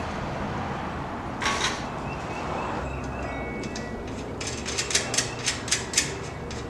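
Wrench work on a bicycle's rear-wheel axle nuts: a brief scrape about a second and a half in, then a quick run of about six sharp metallic clicks a little past the middle.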